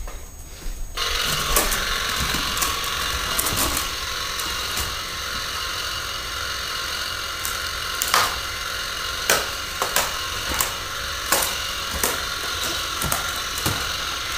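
Toy chainsaw running steadily, switched on about a second in, with scattered sharp clicks over its engine noise.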